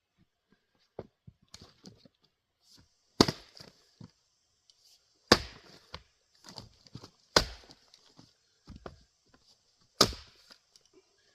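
A 3½-pound Craftsman single-bit axe splitting firewood: four hard chopping strikes about two seconds apart, with lighter knocks of wood between them.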